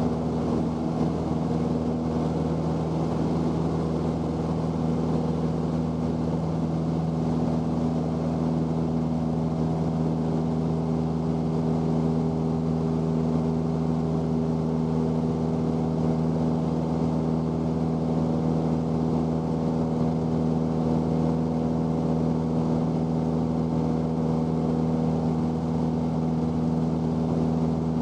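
1978 Cessna 172's four-cylinder Lycoming engine and two-blade propeller running steadily in flight, heard inside the cabin as an even drone.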